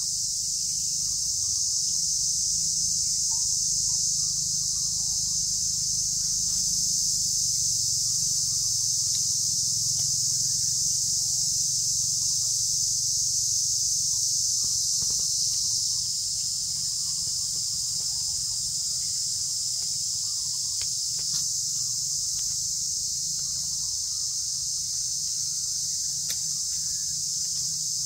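Steady, high-pitched insect chorus, with a low rumble underneath and a few faint short chirps and clicks.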